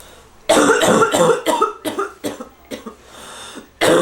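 A person with bronchitis coughing: a run of about six quick coughs, a breath, then two more coughs near the end.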